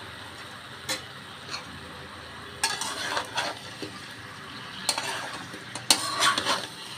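A spatula stirring and scraping spice-coated papaya and potato cubes around a metal karai as they are stir-fried (kosha) in the spice paste. Two light knocks come in the first two seconds, then three bursts of clattering scrapes.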